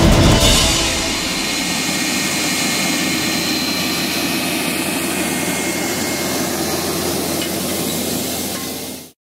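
John Deere 7530 tractor pulling a Kverneland maize planter across a field, its engine running steadily under load with an even rushing noise as it passes and moves away. The sound fades out quickly near the end.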